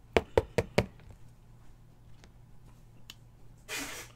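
Four quick, sharp clicks of a hard plastic card holder being handled and tapped as a trading card is put into it, then a few faint ticks and a short rushing sound near the end.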